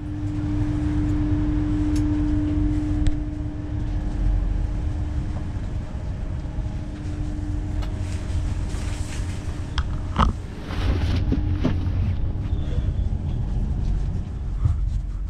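Steady low rumble and hum inside a Hitachi Class 803 electric train carriage standing at the platform. A steady tone, strongest in the first few seconds, fades out about eleven seconds in, and a couple of sharp knocks come about ten seconds in.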